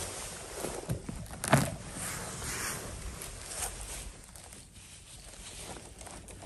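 Rustling and scuffing in forest leaf litter, with footsteps and handling noises and a sharp knock or snap about one and a half seconds in.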